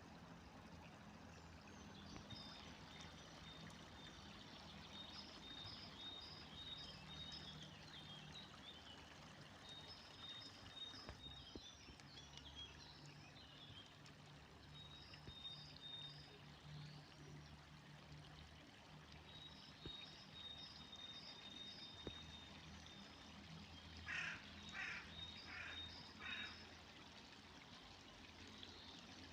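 Faint river water flowing steadily, with a small bird repeating high chirping notes. A crow caws four times in quick succession near the end.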